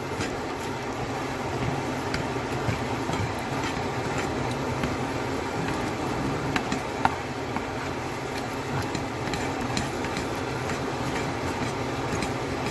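Spatula stirring and scraping ground beef and sloppy joe sauce in a skillet, with scattered taps of the spatula on the pan, over a steady background noise.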